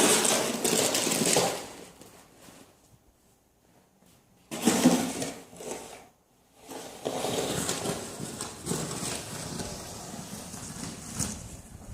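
Snow being shoveled: a shovel scraping and pushing through snow in irregular bursts, with a quiet pause of a couple of seconds before the scraping resumes and carries on.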